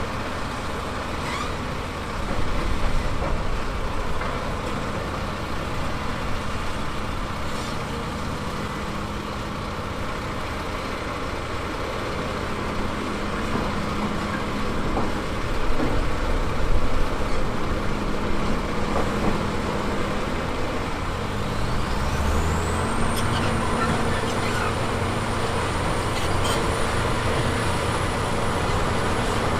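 Heavy diesel construction machinery running steadily at work, with a continuous low engine hum and rumble. About two-thirds of the way through, a thin high whine rises in pitch and then holds steady.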